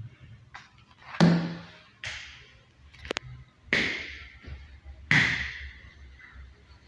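A series of five sharp knocks or thumps, irregularly spaced over about four seconds, each dying away quickly. The first is the loudest, and the third is a quick double click.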